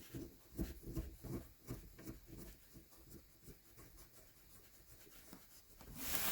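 Faint soft knocks and rubbing, about two or three a second, of a gear lever and its linkage being worked by hand to test 1st/2nd gear engagement. The knocks thin out after about three and a half seconds, and a louder rushing noise rises near the end.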